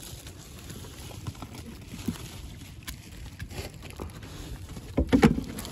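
Faint taps and rustles from handling a net and catch on a wooden boat, over a low steady background. About five seconds in come a few sharp knocks against the boat and a short vocal sound.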